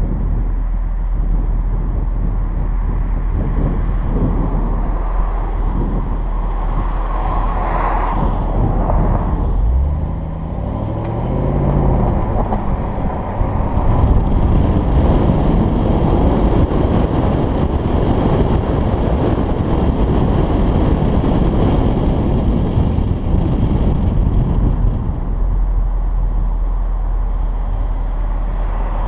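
2011 Jaguar XKR's supercharged 5.0-litre V8 exhaust while driving, its active exhaust valves held open by the pulled fuse 19. The note dips and sweeps up and down about ten seconds in, then runs louder from about fourteen seconds on.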